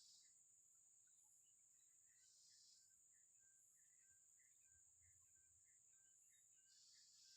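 Near silence: faint outdoor ambience of insects, with a steady high drone and small chirps repeating irregularly.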